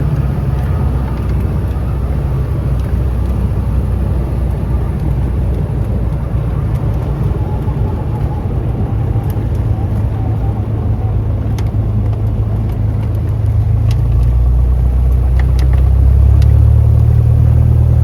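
Cessna 172's single piston engine and propeller droning steadily, growing louder about two-thirds of the way through.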